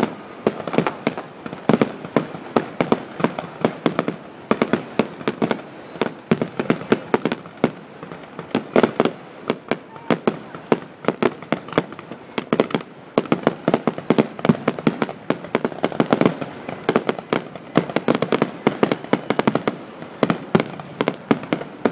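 Fireworks display: a dense, continuous barrage of sharp bangs and crackling reports, several a second, without a break.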